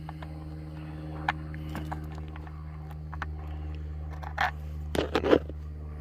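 Small clicks and scraping of a screw being wiggled against a metal-framed RV baggage door panel while feeling for the screw hole, with a louder bout of scraping near the end. A steady low hum runs underneath.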